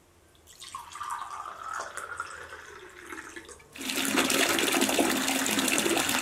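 Red wine poured from a bottle into a wine glass, a soft splashing pour. About four seconds in, a tap opens and water rushes steadily and loudly into a bathtub.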